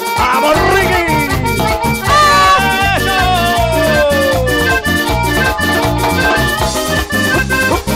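Live Latin dance band playing an instrumental passage: a lead melody with long downward pitch slides over a steady percussion beat and a stepping bass line.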